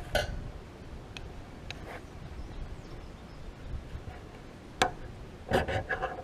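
A sparker struck to light oakum tinder: sharp scraping clicks, a few spaced strokes and then a quick cluster of strikes near the end.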